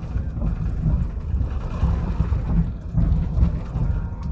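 Cabin noise of an Airbus A350-900 rolling along the runway after landing, spoilers raised: a loud, uneven low rumble from the wheels and airframe, swelling and easing.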